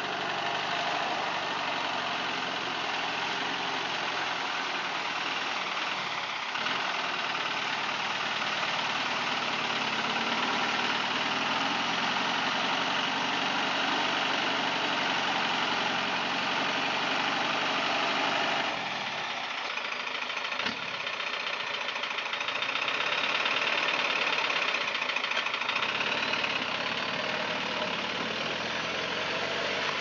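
Off-road 4x4's engine running steadily while the vehicle sits in deep mud. The sound changes suddenly about two-thirds of the way through.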